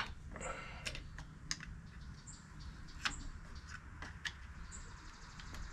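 Light, irregular metal clicks and taps of a screwdriver prying at the transmission cover of a Honda Dio AF18 scooter, working the cover loose from the case.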